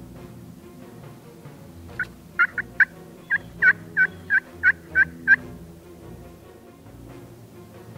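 A run of about eleven short turkey yelps, evenly spaced and each dropping in pitch, over background music.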